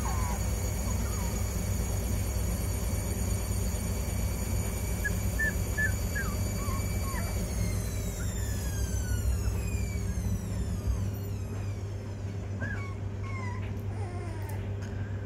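16-day-old Rhodesian Ridgeback puppies giving scattered short, high squeaks and whimpers. Under them runs the steady hum and high whine of a motor, which falls in pitch and winds down from about halfway through.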